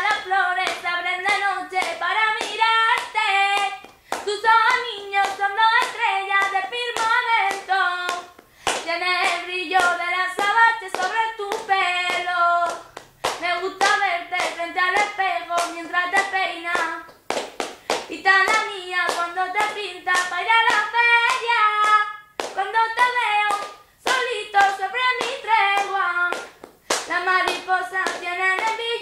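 A high voice singing a song in phrases of about four seconds, with brief pauses between them, while hands clap sharply throughout.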